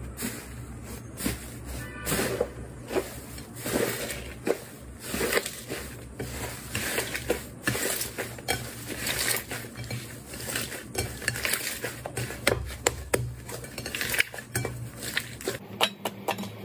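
Slime being pressed, poked and stretched by hand, giving a quick irregular run of crisp clicks and pops.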